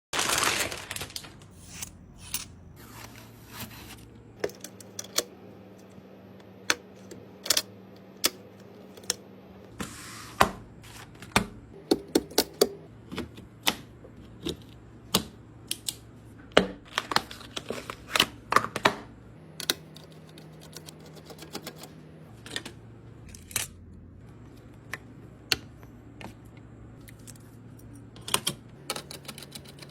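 Irregular sharp clicks and taps of computer parts being handled and fitted together during a PC build, over a faint steady low hum. It opens with a brief loud rush of noise.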